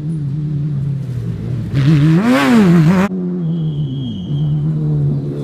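Off-road racing buggy engine running at speed on a dirt track. About two seconds in it revs up hard and falls back, then cuts off sharply to a lower steady note.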